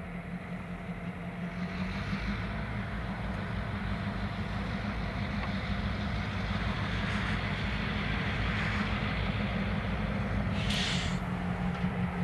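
Diesel locomotive engines running with a steady low drone that grows gradually louder as the train approaches. A short hiss comes near the end.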